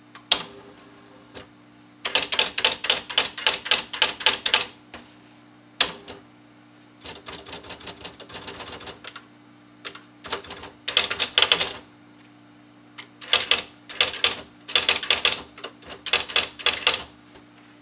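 Smith Corona 235 DLE electric typewriter being typed on: several quick runs of key strikes, with a softer stretch of slower clicks in the middle, over the steady hum of the machine running.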